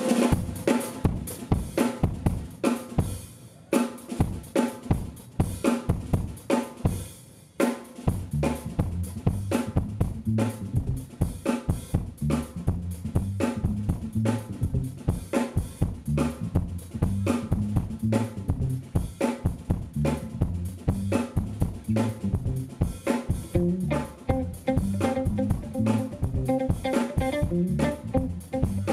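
Live instrumental jazz-funk band starting a tune: a drum kit plays a groove alone for about eight seconds, with snare, kick and hi-hat. Then electric bass comes in under the drums and the rest of the band builds in.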